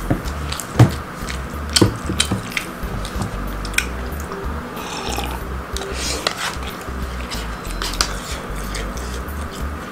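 Close-up eating sounds: sharp clicks and taps of a spoon against a paper food cup, mouth sounds and a sip from a glass mug, over background music.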